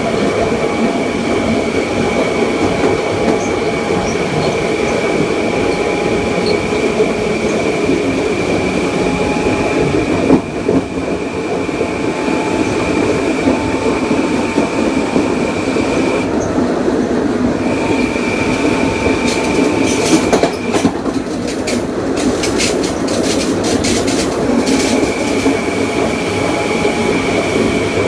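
Kawasaki M9 electric multiple unit running, with a steady high whine from its Mitsubishi IGBT-VVVF inverter and AC traction motors over the rumble of wheels on track. The whine cuts out briefly about 16 seconds in, and again a little after 20 seconds, during a run of clicks.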